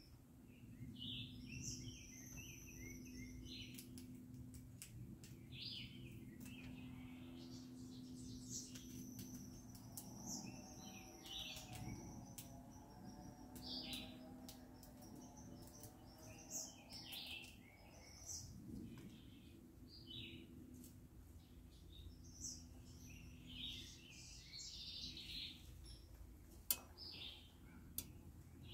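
Songbirds chirping and singing faintly, many short high chirps and whistled notes overlapping, over a low steady hum. A sharp click sounds shortly before the end.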